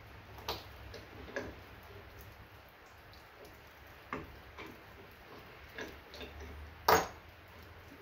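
Small aluminum ingots knocking and clinking as they are loaded by hand into the crucible of an electric melting furnace: a few light, separate knocks, the loudest about seven seconds in.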